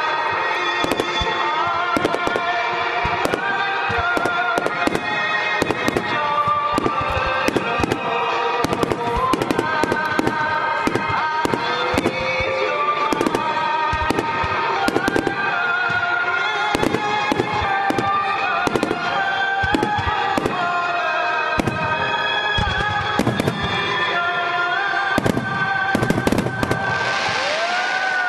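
Fireworks shells bursting in rapid succession, many sharp bangs a second, over music played along with the display.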